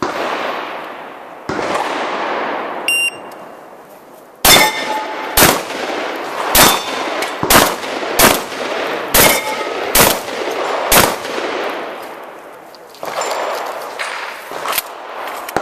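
A shot timer beeps once, about three seconds in. A shotgun then fires eight times, roughly one shot a second, with steel targets ringing after several of the hits.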